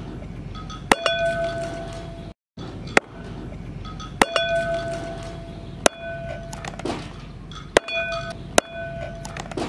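Steel cleaver chopping raw chicken on a wooden chopping board: about seven sharp chops at irregular intervals, each followed by a brief metallic ring from the blade.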